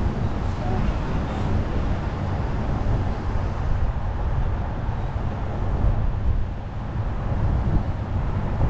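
Steady low rumble of a vehicle driving, engine and road noise, easing briefly about six and a half seconds in.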